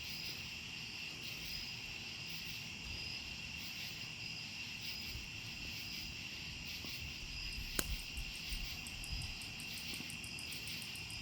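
Steady high-pitched insect trill with a short, higher chirp repeating about every one and a half seconds. A single sharp click comes a little past the middle, and a run of rapid clicks follows near the end. This is the unidentified clicking the recorder is asking about.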